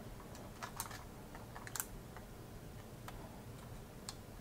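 A handful of light, irregular plastic clicks from a Canon PowerShot G7X compact camera being handled: its battery is pushed into the compartment and the battery door is snapped shut.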